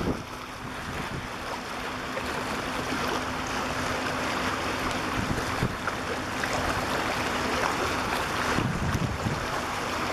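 Wind rushing over the microphone with water washing, and a faint steady low hum underneath that stops near the end.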